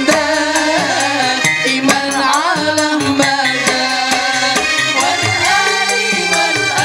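A sholawat group of male and female singers performing an Islamic devotional song through a PA system, over instrumental backing with a steady percussion beat.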